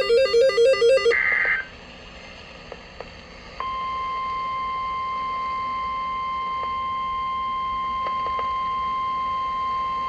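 The last of the weather alert's SAME header data bursts, a rapid warbling buzz, ends about a second in. After a short near-quiet gap, a single steady high tone, the NOAA Weather Radio 1050 Hz warning alarm tone, starts at about three and a half seconds and holds unbroken, signalling that a warning message follows.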